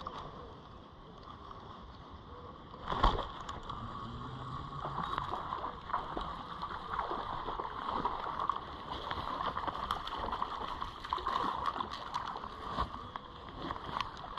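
Small river running steadily over the bank, with one knock about three seconds in.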